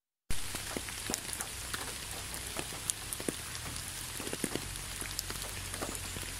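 Gentle rain falling on concrete: a steady hiss with many scattered, separate drops ticking. It cuts in abruptly a fraction of a second in.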